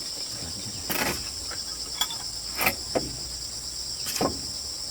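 A steady high chorus of insects, with five sharp knocks or clicks spread unevenly through it.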